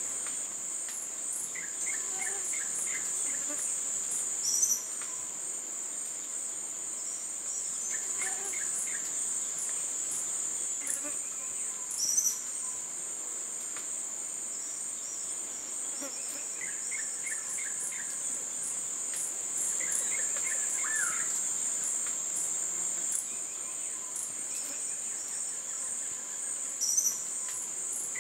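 Steady high-pitched drone of forest insects, with short bursts of rapid chirping now and then and three brief, louder high calls scattered through it.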